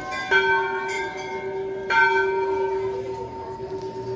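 Hindu temple bells struck twice, about a second and a half apart, each strike ringing on with a long, steady tone.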